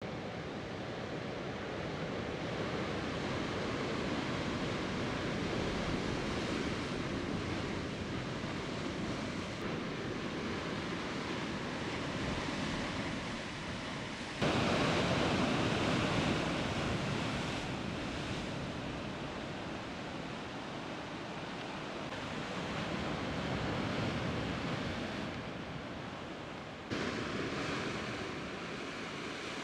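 Sea surf washing against rocks, with wind buffeting the microphone. The noise swells and eases, and jumps abruptly louder about halfway through and again near the end.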